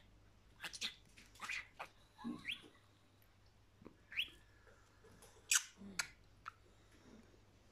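Budgerigars chirping in short, sharp, scattered calls, with a couple of quick rising chirps.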